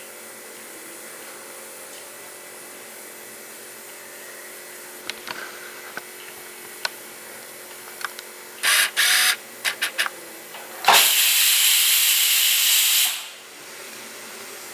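Pressure cooker whistling as it vents steam: a few short sputtering puffs, then a loud steady hiss of about two seconds that stops abruptly. This is the third and last whistle, the sign that the potatoes inside are cooked.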